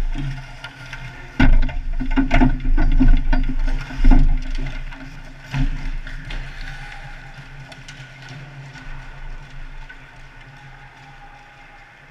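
Ice hockey play right at the net: a sharp knock about a second and a half in, then a clatter of stick, skate and body contacts for a few seconds and one more knock near the middle. It then fades to the low, steady hum of the rink.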